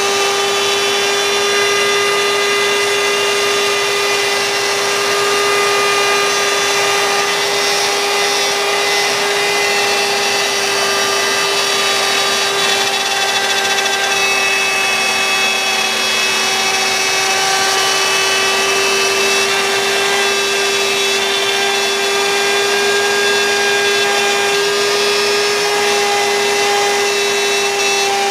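CNC router spindle running steadily under load with a constant whine, its bit cutting wood.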